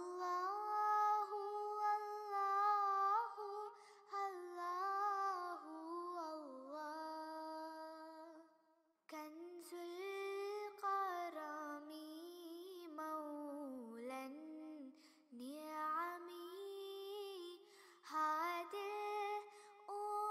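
Background music: a song with a high solo voice singing a slow, drawn-out melody, broken off briefly about nine seconds in.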